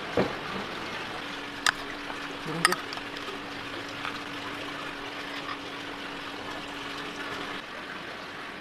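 A metal spoon clinking against bowls, a few sharp clinks in the first three seconds, over a steady hiss, with a faint steady hum from about a second in until near the end.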